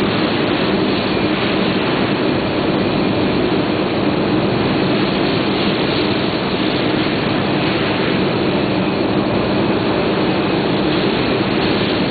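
Electrostatic powder coating line running: a steady, unbroken machinery noise of air rush with a low hum.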